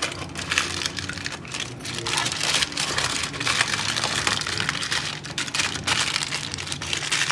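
Aluminium foil crinkling and rustling as hands fold and scrunch it tightly around a chicken piece, a dense run of irregular crackles.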